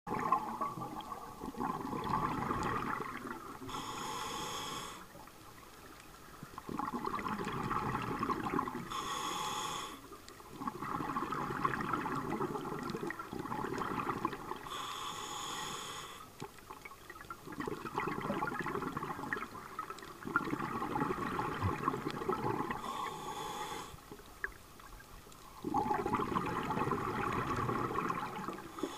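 Scuba diver breathing through a regulator underwater: a short hiss on each inhale, then a longer rush of exhaled bubbles, in a regular rhythm of roughly one breath every five to six seconds.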